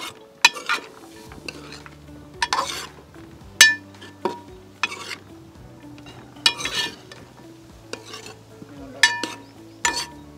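Spatula stirring fresh green peas into vegetables frying in a pan: irregular scrapes a second or two apart, with a ringing metal clink against the pan about three and a half seconds in and a soft sizzle underneath.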